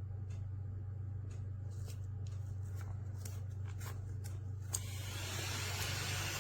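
Light plastic clicks and taps from handling a mini desktop vacuum cleaner and its dust bin, over a low steady hum. A sharp click comes about three-quarters of the way through, followed by a steady hiss.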